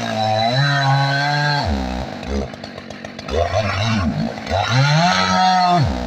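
Two-stroke chainsaw engine revving up, holding high for a second or so and dropping back to a lower run, twice, with a short blip between the two.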